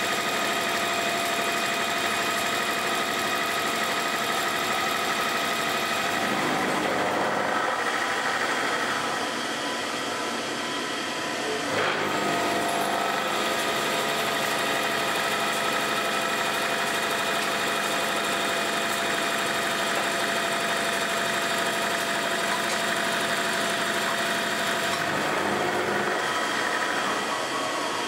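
Converted Abene VHF-3 CNC milling machine face milling a metal block with a round-insert face mill at 720 rpm, 1.5 mm deep: a steady cutting noise with whining tones from the spindle drive, and a single sharp tick about midway. Near the end the cutter runs off the end of the block and the cutting noise gives way to the spindle running on its own.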